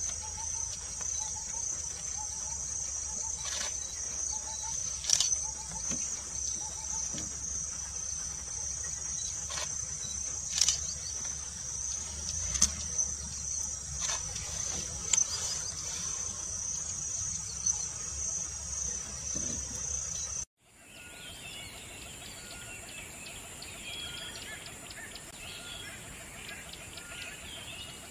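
Outdoor nature ambience: a steady high-pitched insect chirring with a few sharp clicks. About two-thirds of the way through it cuts off abruptly, giving way to scattered bird chirps.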